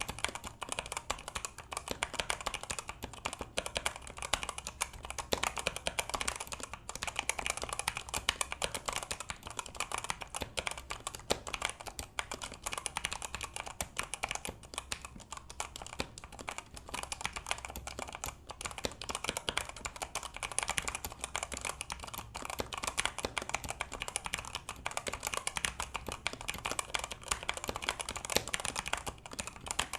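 Continuous fast typing on an E-Yooso Z87 budget mechanical keyboard: a dense, uneven stream of key clicks.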